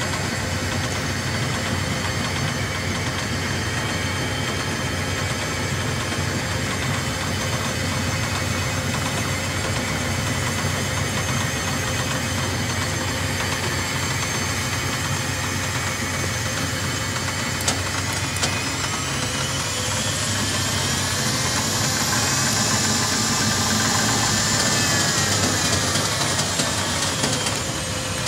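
Hardinge HLV-H toolroom lathe running, a steady machine hum and whine. About two-thirds of the way through, the whine climbs in pitch and grows a little louder as the spindle speeds up, holds, then falls away near the end as it slows.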